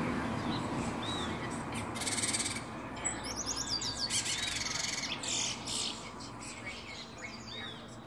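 Trinidad bullfinch (chestnut-bellied seed finch) singing: high whistled notes with fast buzzy trills and quick falling slurs, densest in the middle stretch.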